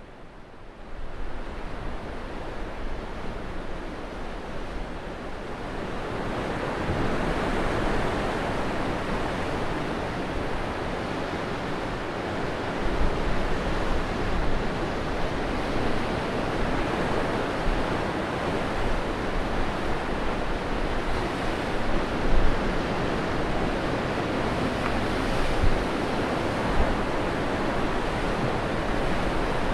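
Sea waves breaking on rocks: a steady rushing surf that grows louder about six seconds in, with a few brief swells.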